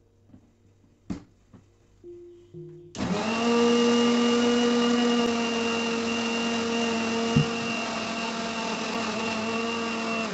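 Electric mixer grinder blending mango pieces in its stainless-steel jar: the motor starts suddenly about three seconds in, runs with a steady whine for about seven seconds, and stops right at the end. A single sharp click comes about a second in, before the motor starts.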